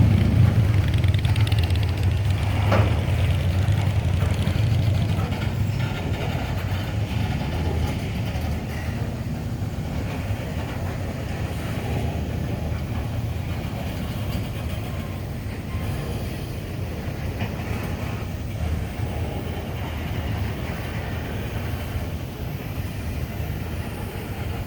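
Cars of a long mixed freight train rolling past: a steady rumble of wheels on rail, with one sharp clank about three seconds in.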